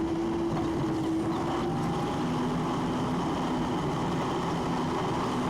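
Steady engine and road noise of a moving vehicle, with a faint humming tone that drops slightly in pitch about two seconds in.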